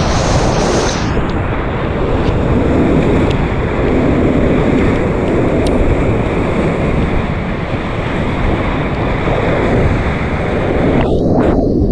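Steady, loud rush of whitewater on a river run, briefly muffled near the end.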